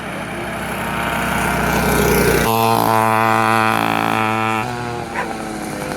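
Small gas bike engine running and building, then revved sharply to a steady high pitch about two and a half seconds in and held there for about two seconds before dropping back down.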